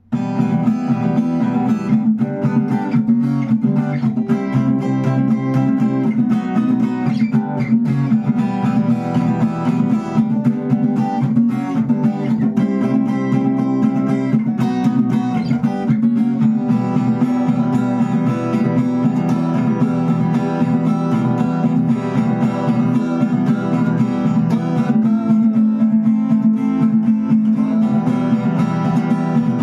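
Acoustic guitar strummed in a steady rhythm, chords ringing between sharp percussive strokes: the 'stuk' technique, where the strumming hand chops down to mute the strings with a knock.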